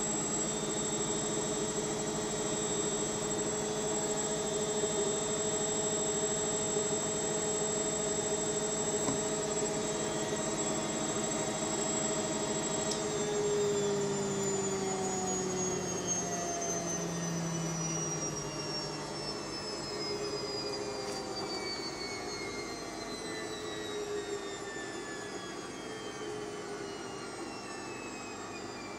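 A machine's steady whining hum, with several tones sounding together. About halfway through, all of them begin to fall slowly in pitch, as if the machine were winding down, and the sound gets a little quieter.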